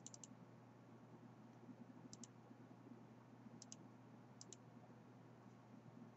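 Near silence with a low steady hum, broken by a few faint sharp clicks: a short run right at the start, then pairs of clicks about two, three and a half, and four and a half seconds in.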